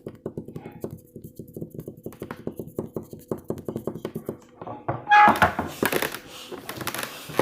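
Rapid light tapping, about five taps a second, then a louder rustling burst about five seconds in.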